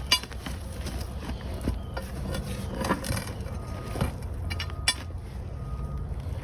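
A few sharp clinks, like metal parts or tools knocking together, over a steady low rumble.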